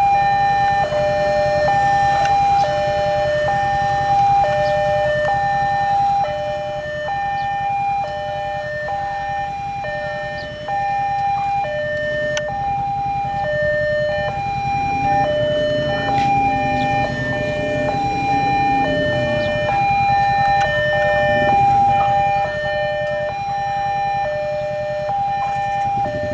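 Railway level-crossing warning alarm sounding continuously: an electronic two-tone chime alternating a higher and a lower note, one cycle a little over a second.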